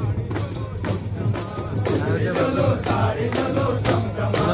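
Music with a steady beat of drums and jingling, tambourine-like percussion, and voices singing along.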